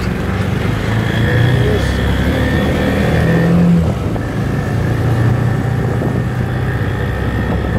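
Small auto rickshaw engine running steadily while riding along a wet, flooded road.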